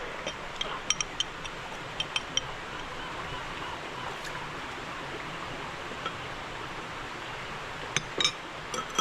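Light clinks and taps of kitchenware, a few short sharp clicks scattered through a steady background hiss, clustered in the first couple of seconds and again near the end, while meat is being handled for marinating.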